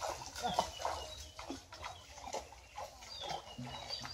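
Domestic fowl clucking in short, irregular calls, with a few high falling chirps.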